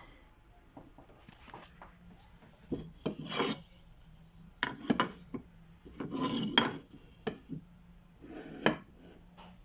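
Small oak boards being handled: several irregular knocks of wood on wood, with scraping and rubbing between them.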